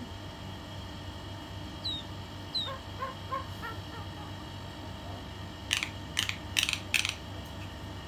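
Pet mynas calling: two short falling whistles, then a few soft short notes, then four loud harsh squawks in quick succession in the second half.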